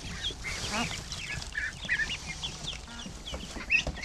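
A crowd of ducklings peeping: many short, high chirps overlapping without a break.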